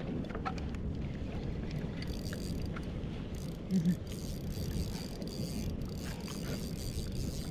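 Steady wind and water rush on a kayak-mounted camera's microphone while an angler plays a hooked fish on a spinning rod, with faint ticks from the reel. A brief low tone sounds just under four seconds in.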